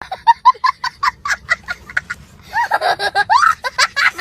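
Women laughing: a sudden burst of high-pitched giggling at about five pulses a second, running into more laughter with rising and falling voices.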